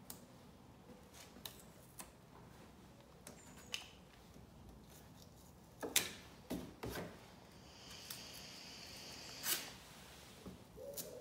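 Masking tape being pulled off the roll and pressed onto a car's front bumper grille. Faint scattered taps and rustles, with a longer rasp of tape peeling off the roll from about eight seconds in.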